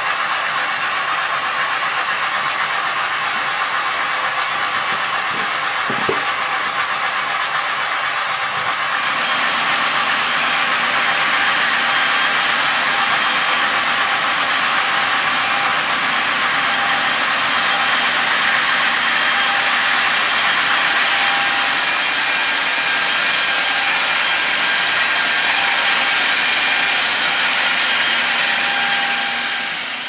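Sawmill saws cutting wood: a steady mechanical rasp of machinery running, which grows louder and hissier about nine seconds in as a heavier cut starts and carries on.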